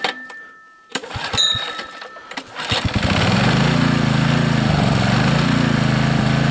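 Small portable generator's engine being pull-started: a recoil-starter pull whirs about a second in, the engine catches near three seconds and settles into a steady run.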